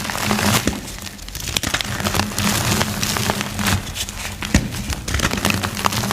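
Reformed gym chalk being crushed and crumbled, a dense run of small crackles and crunches, with a steady low tone underneath.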